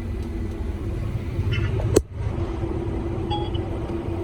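Combine harvester running, with a steady low rumble. A sharp click comes about two seconds in, after which a steady hum sets in.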